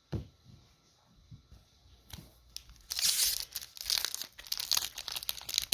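Foil booster pack wrapper being torn open and crinkled: a few light taps, then a dense crinkling crackle from about three seconds in.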